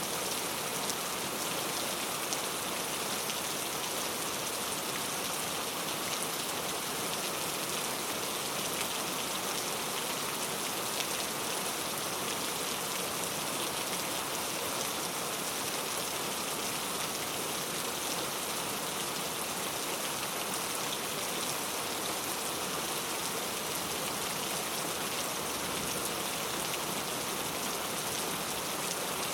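Steady rain, falling evenly with a dense patter of drops on a surface and no let-up.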